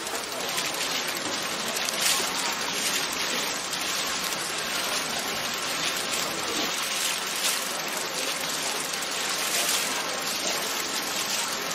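Steady rushing noise like running or splashing water, even throughout with small flickers.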